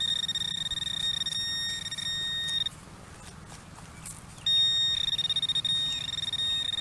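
Handheld metal-detecting pinpointer sounding a steady, high-pitched tone for about two and a half seconds, stopping, then sounding again about four and a half seconds in. The tone signals metal in the dirt where it is held.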